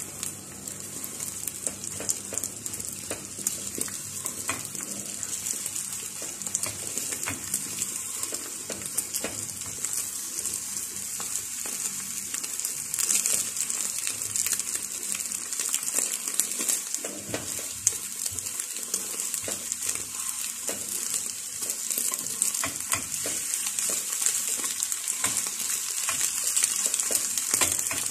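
Eggs sizzling in hot oil in a frying pan as they are stirred and scrambled with a spatula, with a steady high hiss and frequent small taps and scrapes of the spatula on the pan.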